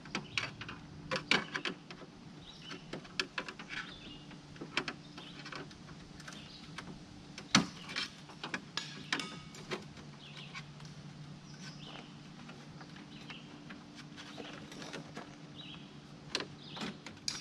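Hard plastic clicking, creaking and knocking as a pickup's plastic grille is worked loose at its corner mounts, its tabs and prong clips pushed in and pried. The clicks come irregularly, with one sharp knock about seven and a half seconds in, over a steady low hum.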